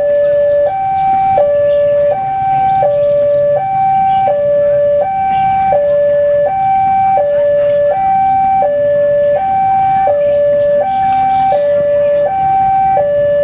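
Railway level-crossing electronic warning alarm sounding a steady two-tone signal, a higher and a lower tone alternating, each held about three-quarters of a second. It signals that a train is approaching the crossing. Faint street-market bustle lies underneath.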